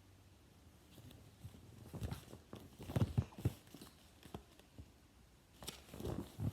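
Irregular soft knocks and taps, several in quick succession about two to three and a half seconds in and a few more near the end.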